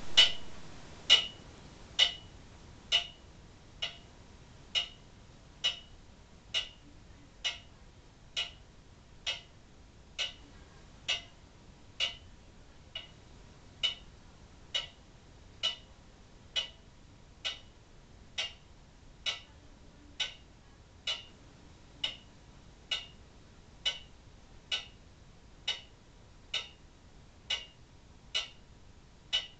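Kuempel tubular chime clock movement ticking steadily, one sharp tick about every 0.9 seconds as its pendulum swings. This is the clock the owner says will not keep running.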